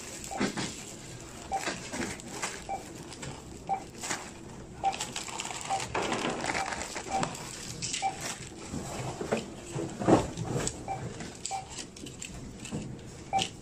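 Supermarket checkout barcode scanner beeping, one short beep about every second as each item is scanned. Around the beeps, plastic-wrapped groceries rustle and knock as they go into a wire shopping cart, with one louder knock near the end.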